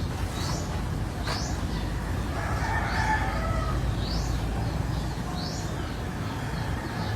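Birds chirping, in short high rising chirps every second or so, with a fainter, lower call about three seconds in, over a steady low rumble.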